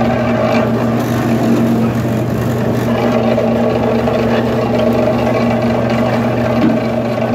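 Motor-driven sugarcane juice mill running with a steady hum, its rollers crushing sugarcane stalks fed in by hand.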